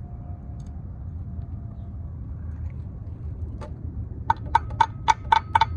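A run of sharp, ringing taps, about four a second, starting about four seconds in, from hand work on a dirt bike's chain guard parts. A steady low rumble lies underneath.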